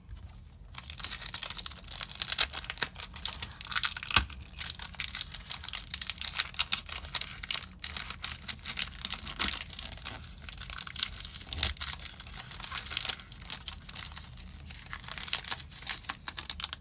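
Foil Yu-Gi-Oh booster pack wrapper crinkling and tearing as it is worked open by hand, a dense stream of crackles and sharp snaps starting about a second in.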